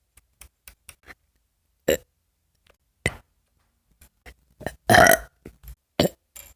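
A person burping over and over: a string of short burps, some faint and some loud, with one longer, louder burp about five seconds in.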